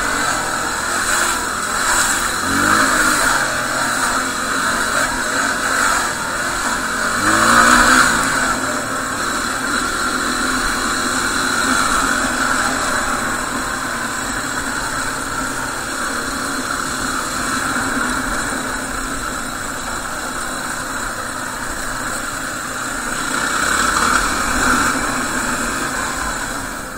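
Yamaha WR250R's single-cylinder four-stroke engine running under way, revving up twice, about three and eight seconds in, then holding a steadier pace.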